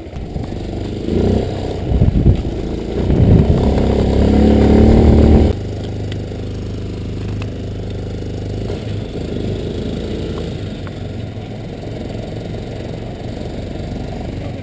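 Off-road buggy engine running while driving on a dirt track, revving louder for a few seconds with some knocks and rattles, then dropping abruptly about five and a half seconds in to a steadier, quieter drone.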